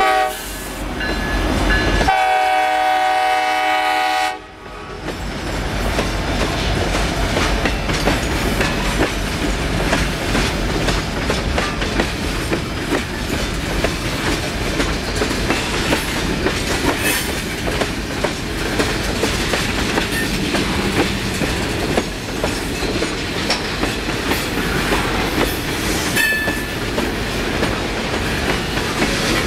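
Alaska Railroad diesel-hauled freight train of petroleum tank cars rolling past, its wheels clicking over the rail joints. About two seconds in, the locomotive horn sounds one blast lasting about two seconds.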